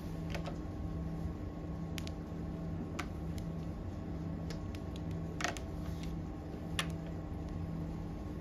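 Mahjong tiles clicking as players draw and discard them on the table, a scattered handful of sharp clicks with the loudest about five and a half and seven seconds in, over a steady low hum.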